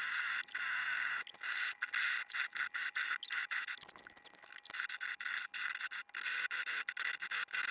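Saw blade cutting into a stuck metal bonnet nut on a shower valve: high-pitched scraping in quick strokes, broken by short gaps.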